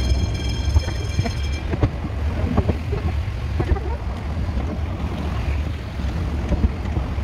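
Running noise of a narrow-gauge train: a steady low rumble with many quick clicks and knocks, with wind on the microphone. A high steady tone sounds over it and cuts off about one and a half seconds in.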